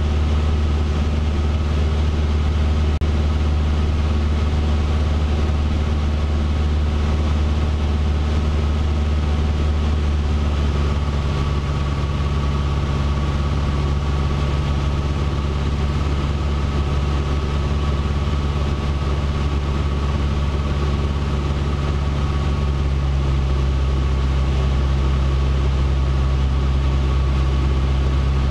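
Cessna 150's four-cylinder Continental O-200 engine and propeller droning steadily in cruise, heard inside the cabin. The engine note shifts slightly about eleven seconds in and again around twenty-three seconds.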